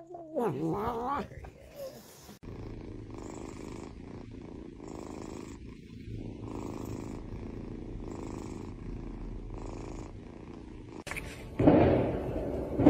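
A black-and-white kitten purring: a steady low rumble that swells and eases in slow, regular cycles with its breathing. A short gliding call comes at the very start, and a louder vocal sound breaks in near the end.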